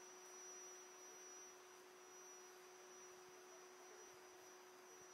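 Near silence: only a faint steady hum and hiss, with no other sound.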